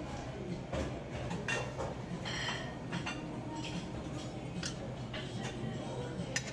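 Buffet serving-line ambience: scattered metallic clinks and taps of serving utensils on steel steam-table pans over a steady low hum. One clink about two and a half seconds in rings briefly.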